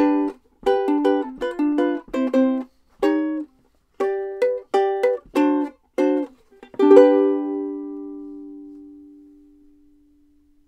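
Ukulele playing a ragtime outro of short, clipped chords, ending on a final chord about seven seconds in that is left to ring and die away.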